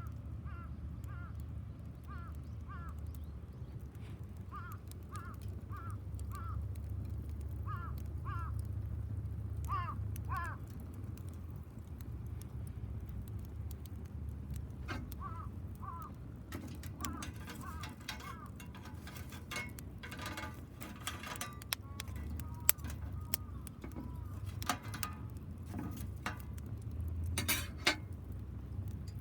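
Wood fire burning in a homemade tower-style fire pit: a steady low rush with sharp pops and crackles, more frequent in the second half. A bird calls repeatedly in short paired notes, most often in the first half.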